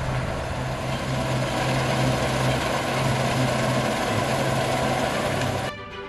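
Deutz-Fahr Topliner combine harvester running steadily while cutting wheat, a low engine hum under an even mechanical rush. Music comes in abruptly near the end.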